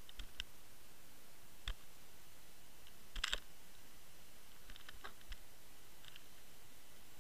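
Underwater recording from a Water Wolf line camera trolled behind a boat: a steady hiss with scattered sharp clicks, the loudest a tight cluster of several about three seconds in.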